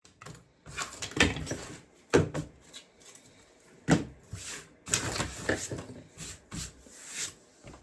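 Craft materials being handled on a work surface: irregular knocks, taps and rustling, with sharper knocks about two and four seconds in.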